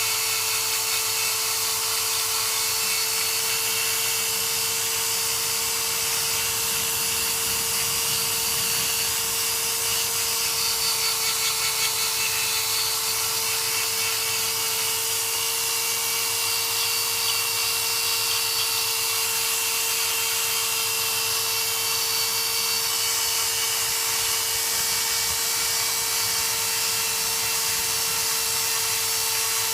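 Small electric power tool running steadily with a constant whine, buffing the rubber around a puncture on a tire's inner tube to roughen it before the glue goes on.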